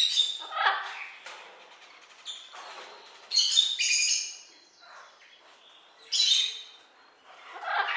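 A parrot squawking and chattering in a series of short, high calls with pauses between them.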